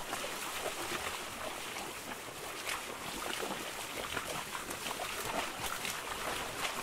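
A herd of cattle wading through a shallow stream: hooves splashing in the water, many irregular splashes over a steady rush of water.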